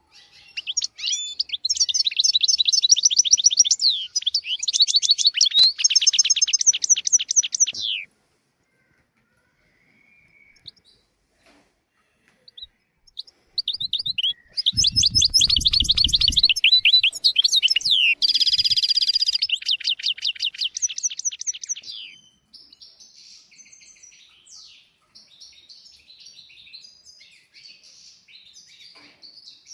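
European goldfinch singing: two long bursts of fast, rapidly repeated twittering notes and trills separated by a pause of several seconds, then fainter song near the end.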